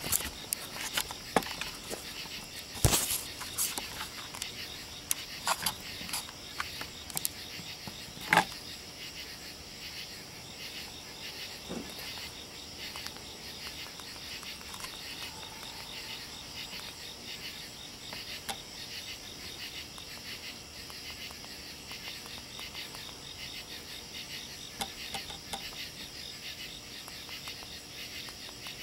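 Steady, high-pitched chirring of a night insect chorus, likely crickets, lasting throughout. A few sharp clicks come in the first several seconds, the loudest about three seconds and eight seconds in.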